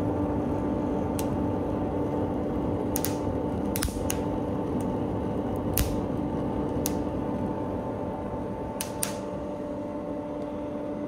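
Split-wood kindling fire crackling in a coal forge's hearth: sharp, irregular pops, about nine of them, over a steady hum and rush of air.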